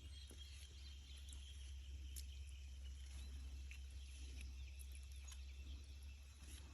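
Faint, scattered short bird chirps over a steady low hum, with a few light ticks.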